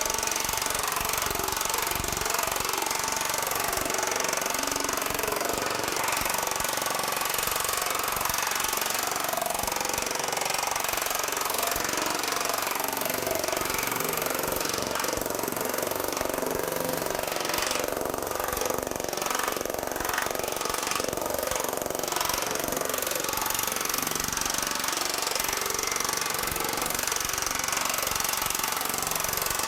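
TM Technologies pneumatic power hammer hammering rapidly and without pause, its dies pounding the edge of a soft 1100 aluminum sheet to shrink it.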